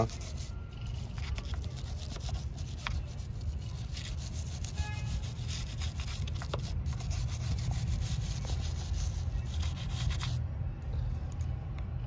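Stiff-bristled brush scrubbing baking-soda paste on corroded car battery terminals, a rapid scratchy rubbing that stops about ten seconds in. A steady low rumble runs underneath.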